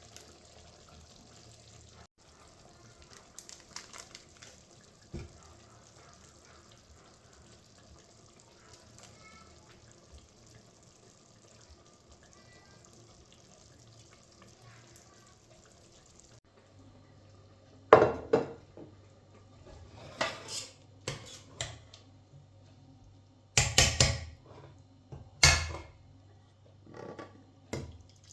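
Dishes and pots knocking and clinking in a kitchen sink, with faint running water. In the second half come a few loud, sharp clatters, a second or two apart.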